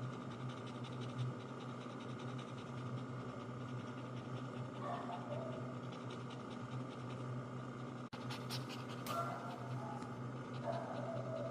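Bichon frisé dog panting rapidly, with scratching noises, over a steady hum.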